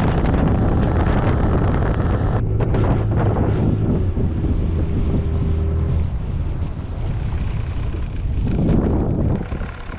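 Wind buffeting the microphone and water rushing past the hull of a bass boat running fast across a lake, with the outboard motor's steady drone underneath. It gets quieter near the end as the boat slows.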